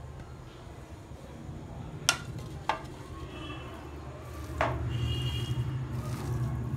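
A hand mixing a chicken, onion and coriander filling in a ceramic bowl, with three sharp clinks against the bowl: two close together about two seconds in and one more at about four and a half seconds. A steady low hum runs underneath.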